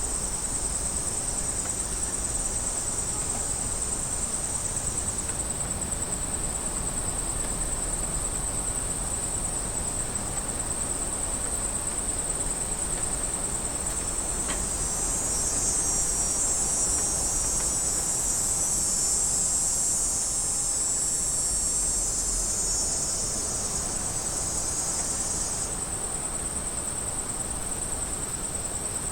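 Cicadas buzzing: a steady, high-pitched drone. Partway through, a second, louder buzz swells in over it for about a dozen seconds, then stops abruptly.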